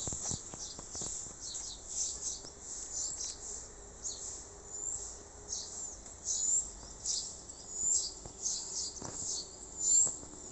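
Small birds chirping over and over: short high-pitched chirps, some with quick sweeping notes, coming irregularly several times a second, with one louder chirp near the end.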